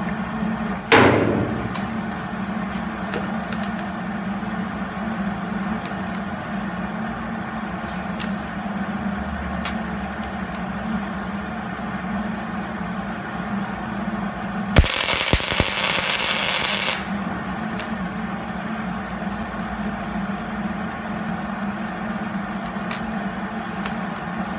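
MIG welder running a short weld of about two seconds on a steel barrel end made from a cut bolt, fixed to a parking-brake cable: a loud hiss that opens with a couple of sharp pops and cuts off suddenly. A sharp clank comes about a second in, over a steady low hum.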